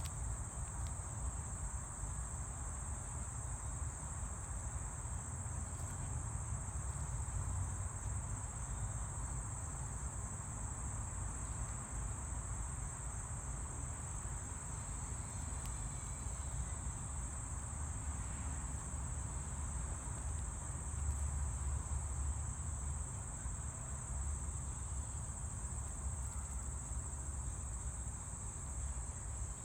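Insects droning in one steady, high-pitched band without a break, over a low, even rumble.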